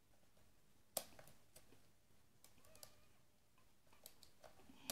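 Faint, sparse metallic clicks of a lock pick and tension wrench working the pins of an ASEC lock cylinder, with one sharper click about a second in. The lock is held in a false set.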